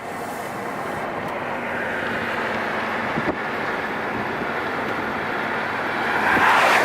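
A vehicle driving past, a steady road noise growing louder to a peak near the end as it comes closest.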